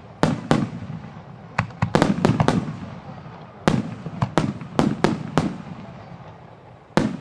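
Fireworks display: a rapid barrage of aerial shells bursting, more than a dozen sharp bangs in irregular clusters, each trailing off in echo. A single bang comes near the end.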